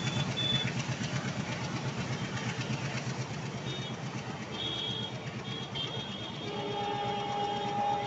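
Passenger train coaches rolling past with a fast rattling rhythm of wheels on the track, and brief thin high squeals at times. About six and a half seconds in, a multi-tone train horn starts and is held steadily.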